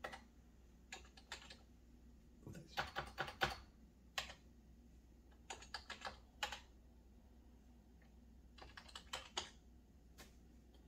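Computer keyboard being typed on: short bursts of a few keystroke clicks each, with pauses between the bursts.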